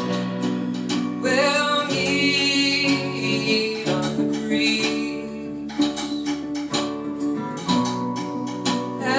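Live folk song: acoustic guitar played with a singing voice over it.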